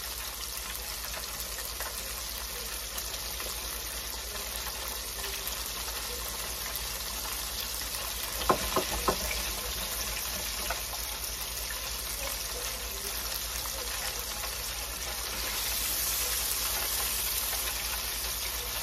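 Flour-coated croaker fish deep-frying in the oil of an electric deep fryer: a steady sizzle, getting louder a few seconds before the end. A few sharp clicks about halfway through.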